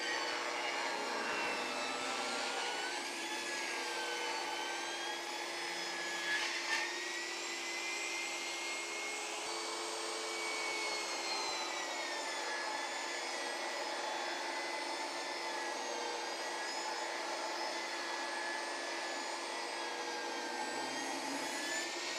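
Benchtop table saw running and ripping a board into narrow rails, its motor whine dipping and rising in pitch as the cut loads the blade.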